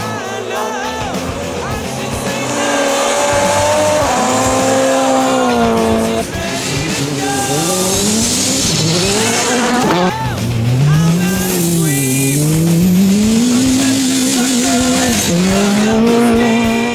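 Rally car engines revving hard through the gears as the cars pass on a snow stage, pitch climbing and dropping back at each shift and lift. A hiss of spray runs over the engine sound.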